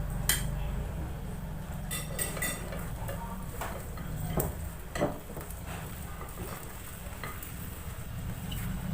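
Eating utensils clicking and scraping against a dish while picking up the last of a plate of crispy fried noodles, with a few sharp clicks spread through.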